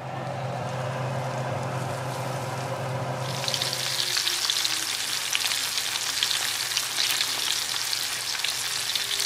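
Battered fish fillets frying in hot oil and butter in a cast-iron skillet. The sizzle jumps to a dense, crackling hiss about three seconds in and stays there, over a steady low hum.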